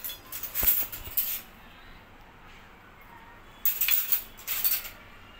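A metal spoon clinking and scraping against a steel bowl in two short spells about three seconds apart, with a sharp click early in the first.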